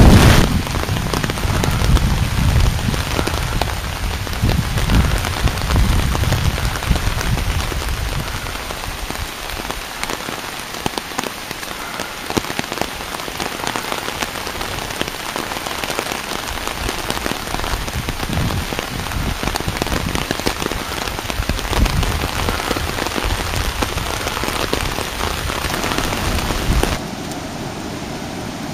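Heavy tropical-storm rain falling on flooded, waterlogged ground, a steady hiss. A low rumble runs under it for the first several seconds, and the sound drops suddenly about a second and a half before the end.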